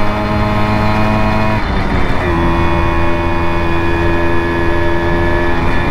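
Simson moped's two-stroke engine running under way at steady revs, with a gear change about two seconds in, after which it settles back into a steady note.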